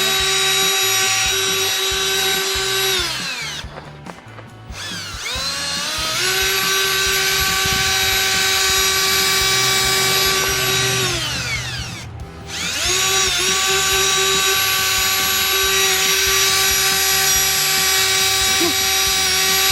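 Milwaukee electric drill spinning a headlight-polishing pad: a steady high motor whine. Twice, around four and twelve seconds in, the trigger is let off: the whine slides down, stops for about a second, then spins back up to speed.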